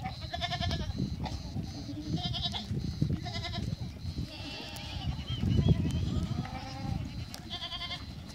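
A herd of goats bleating, about six short quavering bleats from different animals, over the low scuffle of many hooves as the herd moves past.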